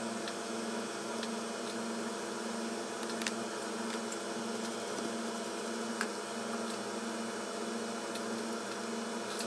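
Steady electrical hum with a constant hiss, with a few faint small clicks, at about three seconds and six seconds in.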